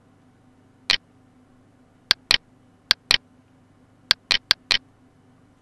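Computer mouse button clicking nine times: a single click, then two quick pairs, then a quick run of four.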